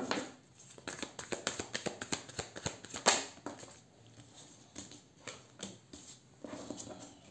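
Tarot cards being handled, shuffled and drawn: a run of quick, irregular papery clicks and snaps, with a louder snap about three seconds in.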